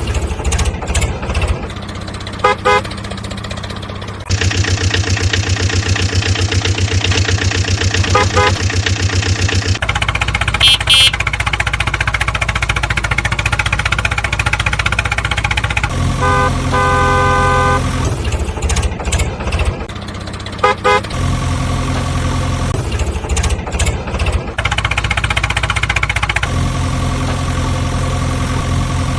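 Vehicle engine sounds that switch abruptly every few seconds, with a run of repeated horn honks about midway.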